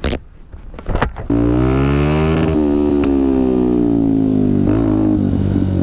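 Benelli TNT 125's single-cylinder engine running as the bike pulls away, its note climbing and then easing back, with a change in pitch near the end. Two sharp knocks come before the engine sound sets in, at the start and about a second in.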